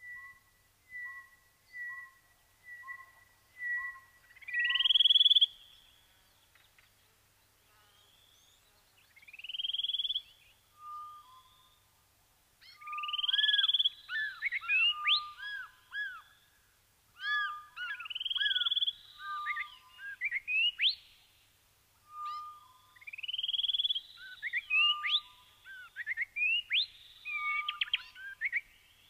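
A bird singing clear whistles: first a two-note whistle repeated about once a second, then loud rising whistled phrases every few seconds, each followed by a quick run of shorter notes.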